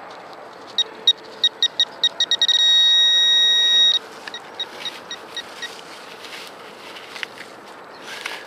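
Teknetics Tek-Point metal-detecting pinpointer beeping in a high tone. The beeps come faster and faster and merge into one steady tone for about a second and a half, then cut off suddenly; a few fainter beeps follow. The rising beep rate is the probe closing in on a buried metal target, and the steady tone means it is right over it.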